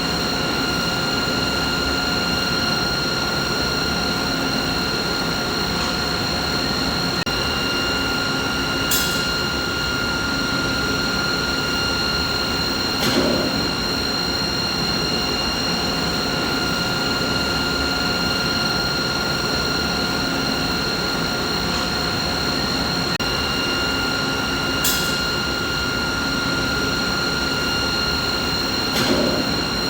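Steady machinery hum: broad noise with a constant high whine running through it, and a few short clicks, the same pair recurring about every 16 seconds.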